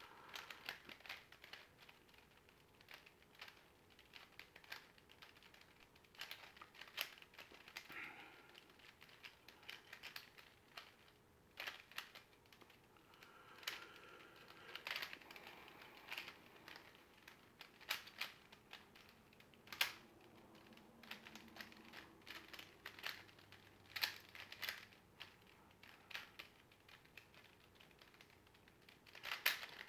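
A twisted plastic Rubik's cube puzzle being turned by hand: faint, irregular clicks and clacks of the layers snapping round, in short flurries between pauses.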